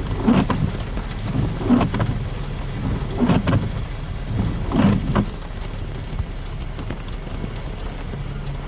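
Heavy rain on a car, heard from inside the cabin over the car's low hum. Windshield wipers swish across the glass about every second and a half, then stop about five seconds in.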